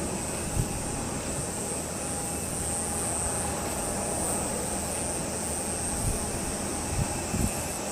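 Embraer regional jet on landing approach, its engines giving a steady whine and rumble. Gusts of wind buffet the microphone with a few low thumps, one about half a second in and a cluster near the end.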